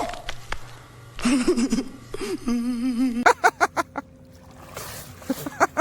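Men laughing in quick, short bursts, with a few words of talk among them.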